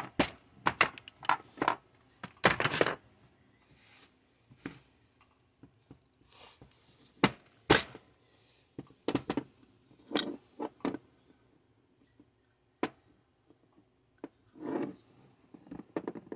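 Metal chainsaw parts and hand tools handled and set down on a workbench: irregular clinks, knocks and short scrapes, with a longer scraping rattle about two and a half seconds in.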